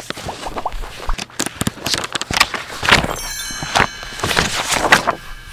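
Animated-title sound effects: a quick run of sharp hits and swishes. From about three seconds in, a shimmering magic-sparkle chime of several held high tones rings over them.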